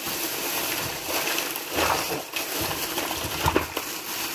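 Thin plastic carry bag rustling and crinkling as it is handled and shaken out, with a few soft knocks of electronics modules in anti-static bags tumbling onto a table.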